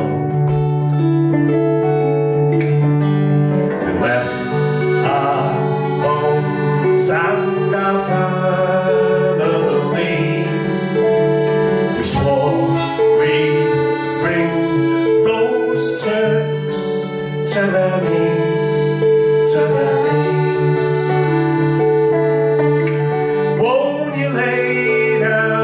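Folk trio playing piano accordion, banjo and acoustic guitar together, the accordion holding steady chords under the plucked banjo and guitar.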